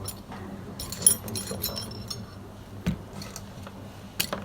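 Small metal tools clinking and clicking as they are picked up and set down on a hard work surface, with a cluster of sharp, briefly ringing clinks about a second in, a duller knock about three seconds in and a click near the end. A steady low electrical hum runs underneath.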